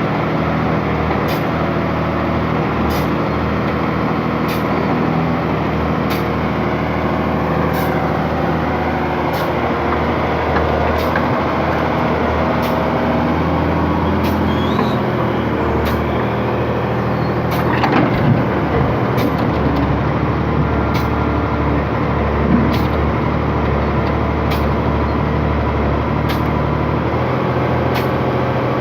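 Case excavator's diesel engine running steadily as it digs, with a brief clatter of the bucket or earth about two-thirds of the way through.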